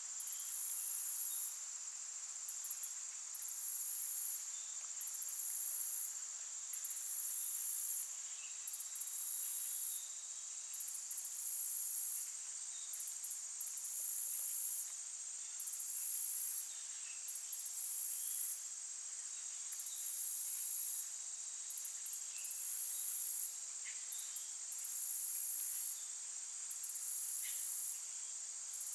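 Insects trilling: very high-pitched bursts about a second long, repeating roughly every second and a half over a steady high drone.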